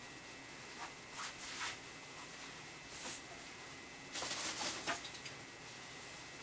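Soft rustling and handling noises from kitchen prep, a few brief scuffs and rustles about a second in, at three seconds and around four to five seconds, over a faint steady high-pitched hum.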